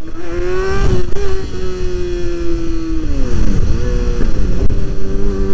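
Kawasaki ZX-6R's inline-four engine running on the move, with wind rushing over the microphone. The engine note climbs slightly at first, falls about three seconds in, then rises again and holds steady.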